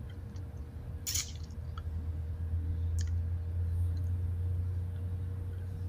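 Low steady room hum that gets louder about two seconds in, with a short crackle about a second in and a sharp click about three seconds in.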